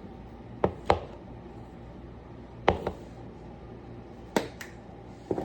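Sharp clicks and taps from seasoning containers being handled and shaken, about six separate knocks, some in quick pairs, over a steady low hum.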